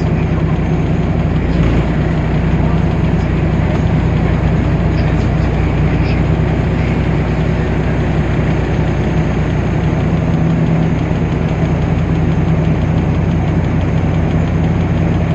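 DAF PR 228 six-cylinder diesel engine of a Temsa Avenue LF city bus running steadily, a constant low hum with no marked revving.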